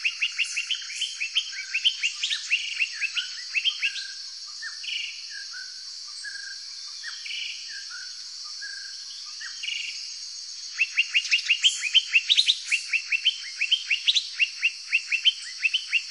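Tropical forest birdsong: a bird calling in fast series of sharp chirps, about five a second, in one bout at the start and another from about eleven seconds in, with slower, varied calls between. A steady high insect drone runs behind.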